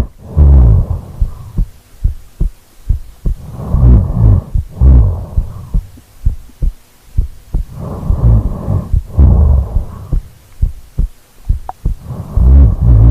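A sleeping woman's heartbeat, close on the microphone, gives a steady run of deep thuds. Slow, heavy snoring breaths swell in and fade every few seconds over it.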